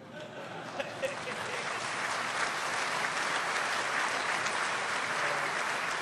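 Audience applauding in a large hall. The applause builds over the first couple of seconds, then holds steady.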